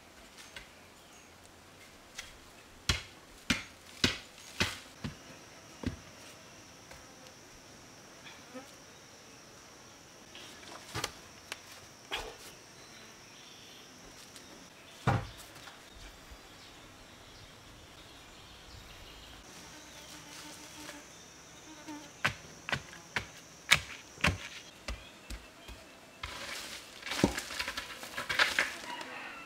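Sharp knocks and thuds of a wooden digging stick striking hard earth, in clusters of several blows with gaps between, turning to denser scraping and knocking in the dirt near the end. An insect's steady high buzz comes and goes behind them.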